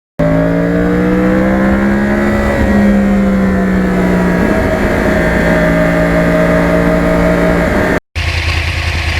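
Yamaha R1 Crossplane's inline-four engine pulling under way. Its note climbs slowly and drops twice at upshifts. About eight seconds in it cuts abruptly to a lower, steady engine hum.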